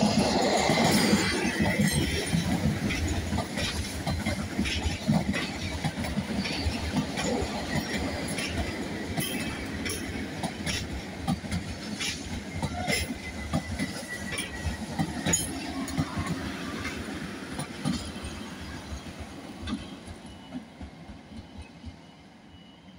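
Double-deck Transilien electric commuter train passing, wheels clicking over rail joints with a faint thin squeal partway through. The rumble is loudest at first and fades away near the end as the train recedes.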